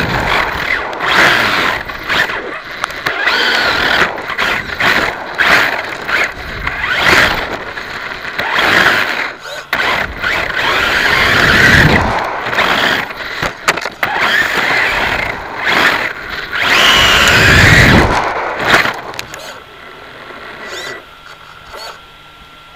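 On-board sound of an XTM XT2E electric RC buggy driving on tarmac, recorded by a keychain camera on the car: a motor whine rising and falling with the throttle over rough tyre and wind noise. Near the end it stops and the sound drops to a faint hum.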